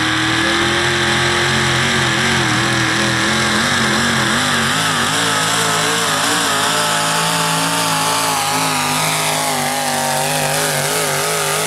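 Ford Super Duty pickup's engine at full throttle, dragging a pulling sled down the track. The revs stay high with a pitch that wavers up and down, easing upward near the end.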